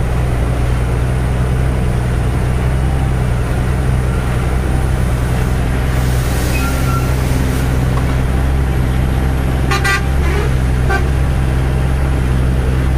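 Truck engine running steadily on the move, heard from inside the cab as a loud low drone. Brief vehicle horn toots sound about six and a half seconds in and again around ten seconds in.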